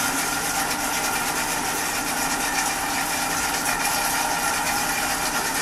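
Countertop blender motor running steadily at medium-low speed, emulsifying egg yolks and olive oil into aioli as the oil is drizzled in slowly.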